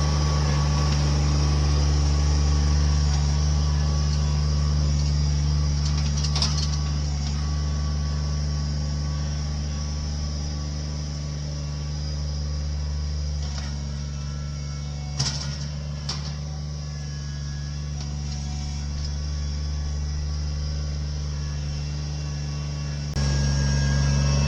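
Engine of heavy land-clearing machinery running at a steady speed, with a few sharp knocks or clanks. The engine note drops a little partway through and comes back up abruptly near the end.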